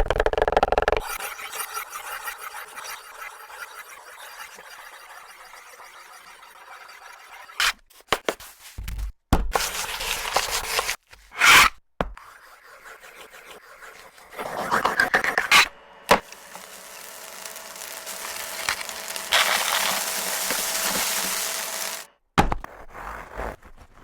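Hamburger-making sounds in a string of short cuts: scraping and rubbing on a surface, with a steady hiss that builds up and holds near the end.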